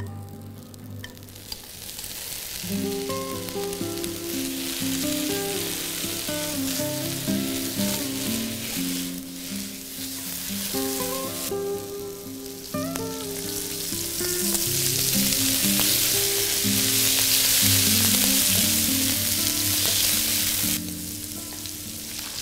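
Ginger slices and salted vegetable sizzling as they fry in a hot wok. The sizzle grows louder after cooking oil goes in about halfway, then drops off shortly before the end. Background music plays throughout.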